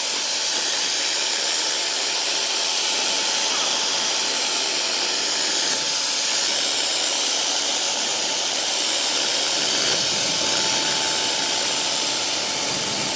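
Wagner paint sprayer running, a steady loud rushing hiss of its turbine air as it sprays paint, with a faint steady whine underneath.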